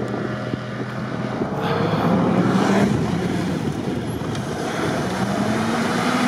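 4x4 engine running under load while driving through deep snow. Its pitch rises as it revs about two seconds in and again near the end, with wind noise on the microphone.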